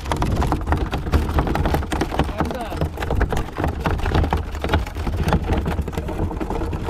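Wind and water noise aboard a small fishing boat at sea: a steady low rumble with many short crackling splashes and knocks.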